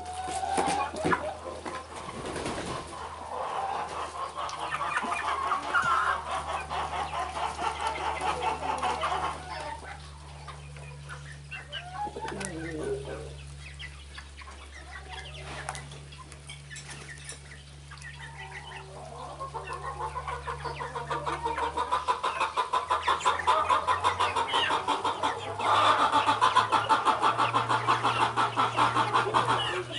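A flock of chickens clucking, in two long spells of fast, rattling clucks with quieter scattered calls between them. A steady low hum runs underneath.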